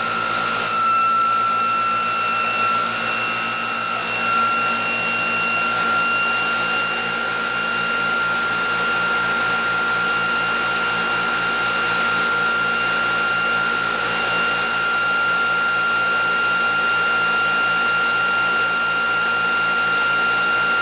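Electric motor test rig spinning its rotor at steady speed: a constant high-pitched whine over a low hum.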